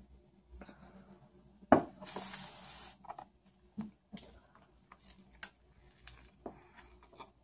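A drinking glass set down on a glass tabletop with one sharp knock a little under two seconds in, followed by about a second of paper rustling. Then small handling clicks and close mouth sounds as she takes a bite of a soft sandwich with lettuce and chews.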